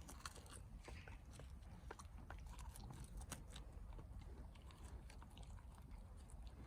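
A dog tearing at and chewing grass: irregular small crunches and crisp clicks.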